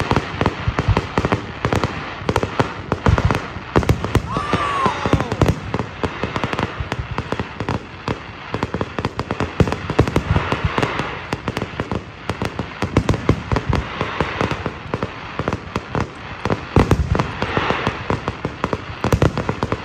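Fireworks display: aerial shells bursting with dense, rapid crackling and pops, with heavier clusters of bangs every few seconds.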